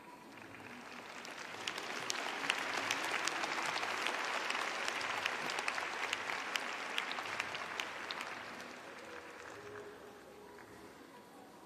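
Arena audience applauding, a dense patter of many claps with sharp single claps standing out. It builds over the first couple of seconds and dies away near the end.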